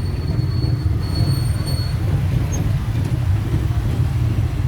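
Steady low rumble of a road vehicle on the move, with a thin high whine over it for the first two seconds.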